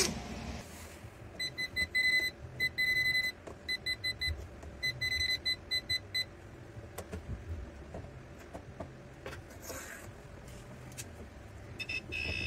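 Klein non-contact voltage tester beeping in short, irregular runs as it is held near a live cord, signalling voltage present. Near the end, the SKIL 4V cordless screwdriver's built-in circuit sensor starts a steady high buzzing alarm, detecting voltage at the outlet.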